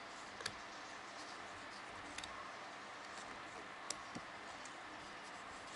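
Piston ring clicking lightly against the piston as it is worked into its groove by hand: a few sharp, sparse clicks over a steady faint hiss.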